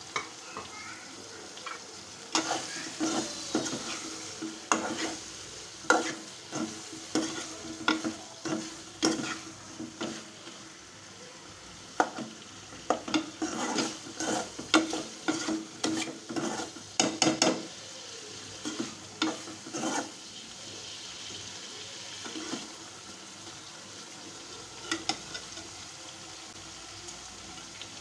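Metal ladle stirring radish and shrimp curry in an aluminium pot, clinking and scraping against the pot over and over for most of the first twenty seconds, then only a few taps near the end. Under it the curry sizzles steadily.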